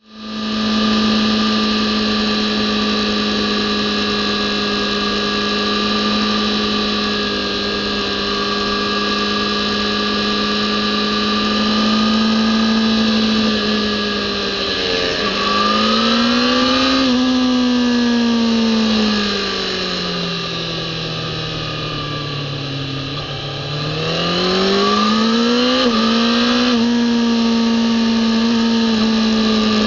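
Kawasaki ZX-10R inline-four engine heard onboard at track speed. It holds a steady high-revving note for about fifteen seconds, then rises and falls as the throttle changes, sinks to lower revs around twenty seconds in, and climbs back up about 24 seconds in.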